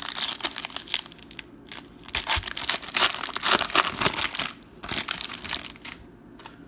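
Foil trading-card pack wrappers being torn open and crinkled by hand, in several bursts of crackling, loudest in the middle, fading near the end.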